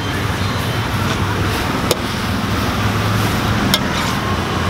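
Street-stall wok cooking: a steady hiss with a low rumble underneath, and two sharp metal clinks of a spatula against the wok, about two and four seconds in.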